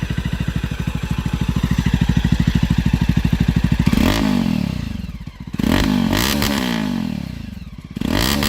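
Jawa 42 motorcycle's single-cylinder engine idling with an even, pulsing beat through its stock exhaust, its baffle filter set at level 3. About halfway in the throttle is blipped three times, the note rising and falling back each time.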